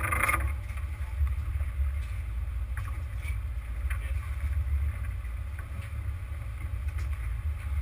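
Steady low rumble aboard a sport-fishing boat, with wind buffeting the microphone. A brief rush of noise right at the start and a few light knocks.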